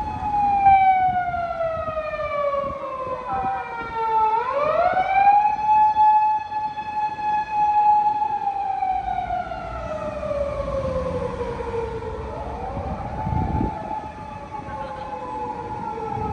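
Japanese police car siren wailing: a held high tone that slowly slides down over several seconds, then sweeps quickly back up and holds again, twice over.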